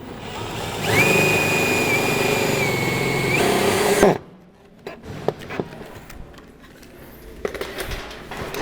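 A handheld electric power tool runs for about three seconds with a steady high whine, the pitch dipping slightly and rising again just before it stops abruptly. A few light knocks and clicks follow.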